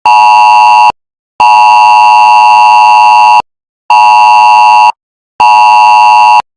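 Mobile phone's emergency alert tone from a cell broadcast test alert: a loud two-tone alarm beeping in the standard attention pattern of one long beep of about two seconds followed by two one-second beeps, with half-second gaps. A short beep ending a previous round comes first, and the tone stops about six and a half seconds in.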